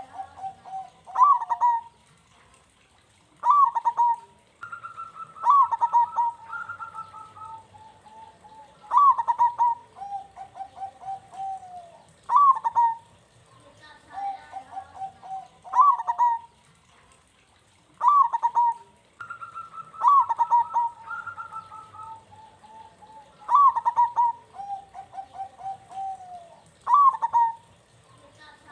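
Zebra doves cooing: each phrase opens with a loud falling note and runs into a quick string of soft pulsing coos. The phrase repeats every three to four seconds, and a second, higher-pitched dove overlaps it at times.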